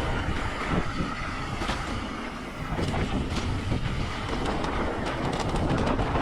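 Wind buffeting the microphone of a mountain bike riding fast down a dirt trail, with tyres on the dirt and the bike rattling and knocking over rough ground throughout.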